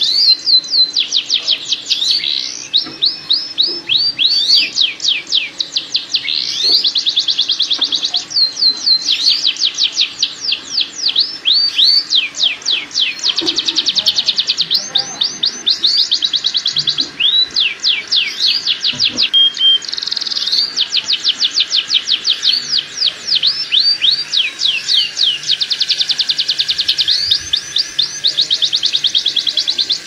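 Domestic canary singing a mating song: rapid trills of high, quickly repeated downward-sweeping notes in phrases of a few seconds each, with brief breaks between phrases. This is the 'ngerek' courtship song played as a lure to bring canaries into breeding condition.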